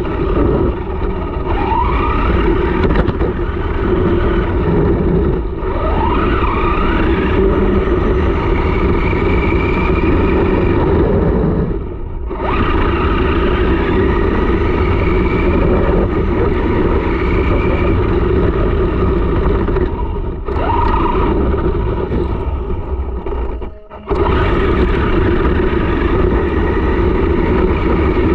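Electric RC car driving over asphalt, heard from a camera mounted on it: a steady rumble of tyres and drivetrain, with the motor's whine rising in pitch a few times as it speeds up. The sound dips briefly twice, about twelve and twenty-four seconds in.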